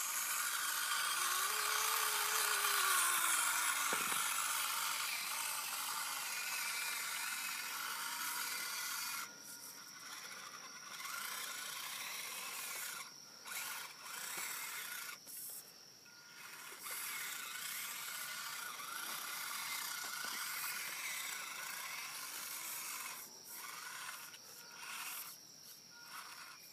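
Losi Micro Crawler RC truck's small electric motor and gearbox whining as it climbs, the whine cutting out and back in again and again as the throttle is let off and applied.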